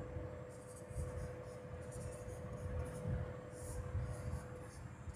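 Marker pen writing on a whiteboard: a series of short scratchy strokes as letters are drawn, over a faint steady hum that fades near the end.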